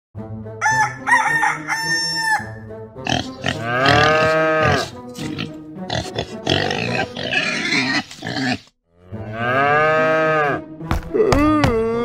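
Farm-animal sound effects over background music: a string of animal calls, short ones at first and then two long calls.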